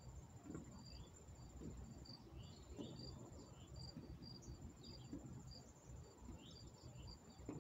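Faint, steady insect trilling with short chirps repeating over it. Under it, soft low thuds about once a second from feet stepping on a wooden deck.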